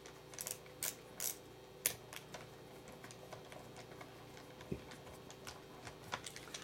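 Scattered light clicks and taps from hands handling the plastic pickguard halves and their screws on the bass body, a cluster of sharper ones in the first two seconds and fainter ones after, over a faint steady hum.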